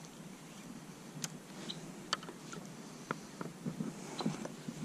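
Quiet outdoor ambience with a few light, irregular clicks and taps from fishing tackle handled on a plastic fishing kayak.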